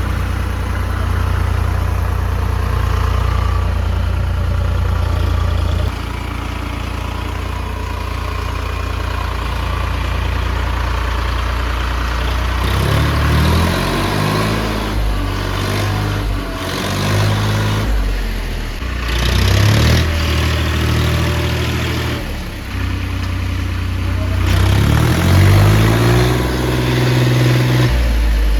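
JCB 3DX backhoe loader's diesel engine running steadily, then from about halfway revving up and down again and again as the machine works.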